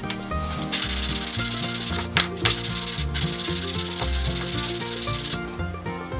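Wooden body of a small Japanese kanna plane rubbed back and forth on 240-grit sandpaper laid on glass, flattening the plane's sole: a steady rasping hiss with two brief breaks where the stroke turns. It starts about a second in and eases off near the end.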